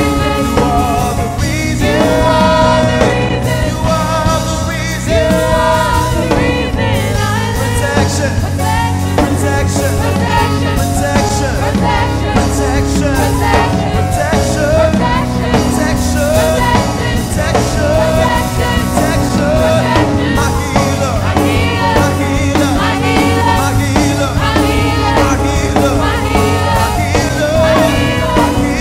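Praise and worship song: voices singing a melody over band accompaniment with steady bass notes and a regular beat.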